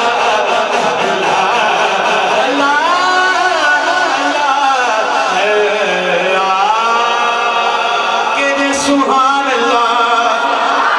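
A man singing a naat, a devotional chant, solo into a microphone, with a brief knock about nine seconds in.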